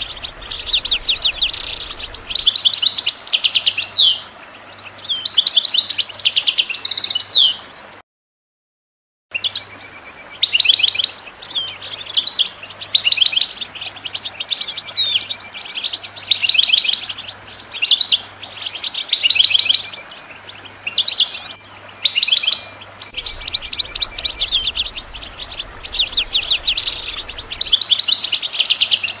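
European goldfinch song: rapid, dense twittering and trilling phrases, cutting out completely for about a second roughly a third of the way in before carrying on.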